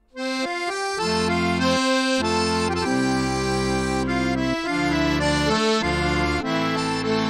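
Accordion music playing a lively tune with bass and chord accompaniment, starting suddenly just after the start.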